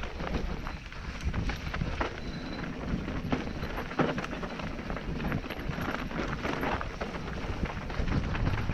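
Mountain bike descending a rough dirt trail: tyres crunching over loose gravel and stones with a constant rattle of knocks and clatter from the bike, and a sharp knock about four seconds in. Wind rumbles on the microphone, louder near the end.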